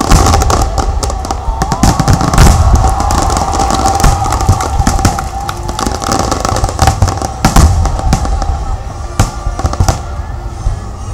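Aerial fireworks going off in quick succession, many sharp bangs and cracks following one another without a break, over a steady tone.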